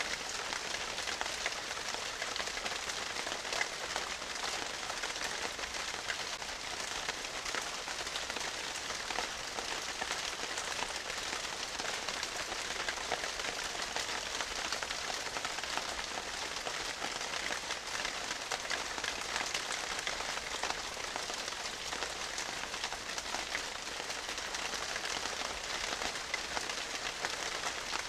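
A steady, even hiss with fine crackle, much like rain falling on a surface.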